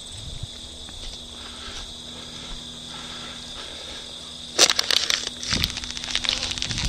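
Steady high insect chirring, then about two-thirds in, sudden loud close rustling and crackling that keeps going, like movement through dry brush.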